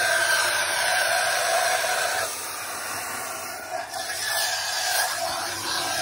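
Black Goblin ECV002B-19 cylinder vacuum cleaner running with its crevice tool fitted: a steady motor whine over rushing air. The note fades and the level dips for about two seconds midway, then comes back.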